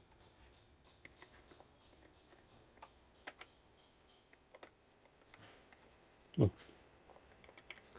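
Faint, scattered clicks and small rattles of a small plastic enclosure and its connector being handled and fitted together. About six and a half seconds in there is one brief, louder low sound.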